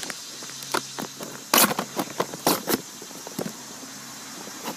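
Handling noise: scattered sharp clicks and knocks of things being moved close to the microphone, over a faint steady hum.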